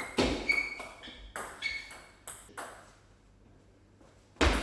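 Table tennis rally: the ball clicking off the bats and bouncing on the table, about six sharp pings in the first three seconds, then a louder knock near the end.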